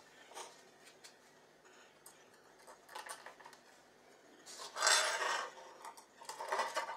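Handling noise of a metal alligator clip and cable on ceramic floor tiles: light clicks and clinks, with a longer scrape about five seconds in and another near the end as the cable is pulled and its bare end pushed into a mains socket.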